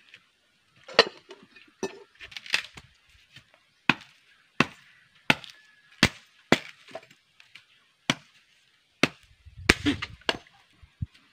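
Machete blade chopping into a thin wooden branch: about a dozen sharp hacks, spaced irregularly, roughly one or two a second.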